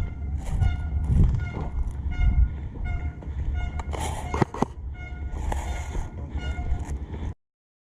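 A short pitched beep repeating about twice a second over steady wind rumble on the microphone, with two sharp clicks about halfway through; the sound cuts off abruptly near the end.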